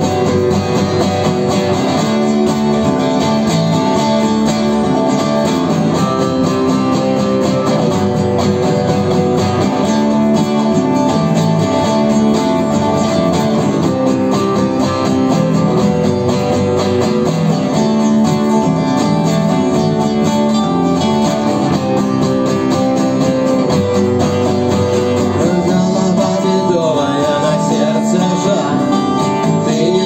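Live rock band playing an instrumental passage without vocals, led by a strummed acoustic guitar over bass and electric guitar.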